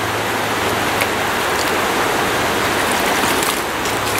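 Shallow stream water running steadily over rocks, a steady rushing, with a few brief faint ticks.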